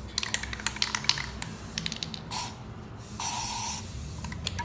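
Aerosol spray paint can rattling, its mixing ball clicking, then spraying paint in short hissing bursts onto water for hydro dipping.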